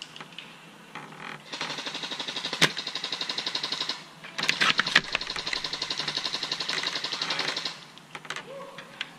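Airsoft gun firing rapidly on full auto in two long bursts, each a few seconds long, with a short pause between them. Sharp cracks are heard during the bursts, the loudest about two and a half seconds in.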